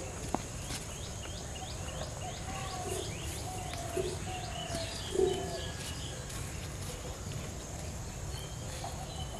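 Birds calling: one bird repeats a short, sharp chirp about three times a second for the first four seconds or so, over low cooing of doves.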